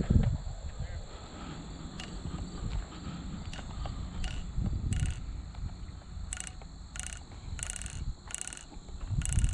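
Insects droning steadily in the background. From about halfway in, a series of short, harsh animal calls, likely bird calls, repeats roughly once a second.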